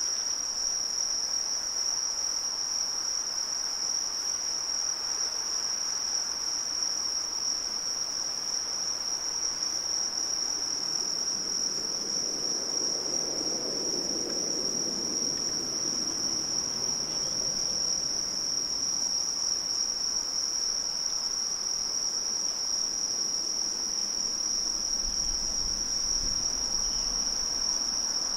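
Crickets or similar insects singing in a continuous, steady high-pitched chorus. A faint low rumble swells and fades about halfway through.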